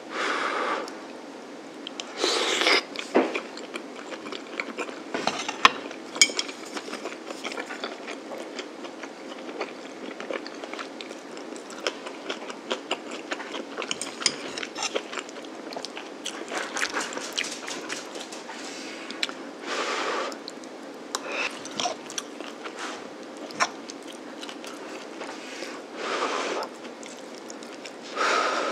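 Someone eating a tofu rice bowl: a metal spoon clinking and scraping against a ceramic bowl, with chewing in between. Many sharp little clinks are scattered throughout, with a few louder scrapes now and then.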